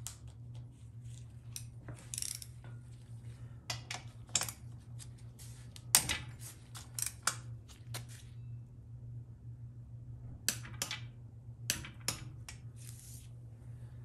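Torque wrench ratcheting and clicking on a transmission case feed bolt being tightened to 22 lb-ft: a scatter of light metallic clicks and taps, with one sharper click about six seconds in. A steady low hum runs underneath.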